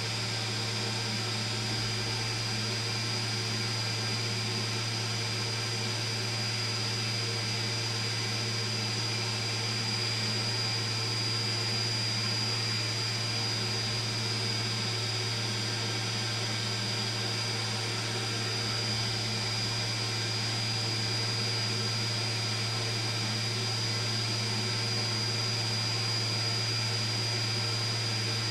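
Solder fume extractor fan running steadily: an even whir with a constant low hum and a thin high whine.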